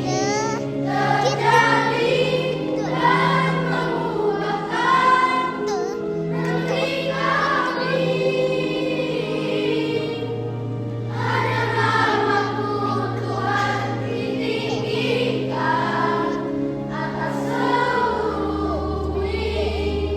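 Children's choir singing a song in phrases of a few seconds each, over an accompaniment that holds long, steady low notes.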